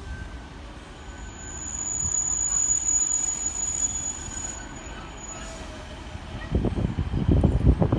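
Diesel multiple unit train pulling into a platform, with a steady high-pitched brake or wheel squeal from about a second in until past the five-second mark. Louder, uneven low rumbling comes in near the end.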